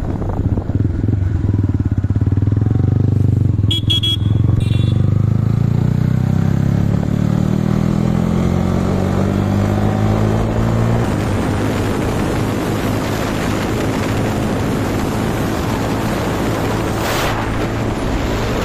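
Motorcycle engine running on the move, its pitch climbing steadily as it accelerates for the first half. After that a steady rush of wind and road noise takes over at speed.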